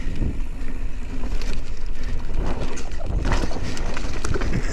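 Wind buffeting the microphone of a mountain biker's camera while riding down a dirt singletrack trail, a steady low rumble with the mountain bike's tyres rolling over dirt. A few clicks and knocks from the bike come through in the second half.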